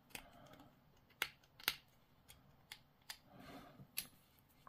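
Several faint, sharp plastic clicks spread over a few seconds, with a brief soft rustle about three and a half seconds in: small plastic miniature parts being handled.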